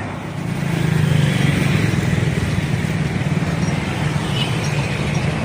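A bus engine running close by with road noise, a steady low drone that grows a little louder about half a second in, as a bus passes.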